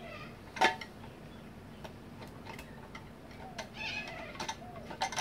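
Plastic clicks and knocks from the parts of a Kenwood Chef stand mixer's housing being fitted together by hand, with one sharp click about half a second in and a few lighter taps after.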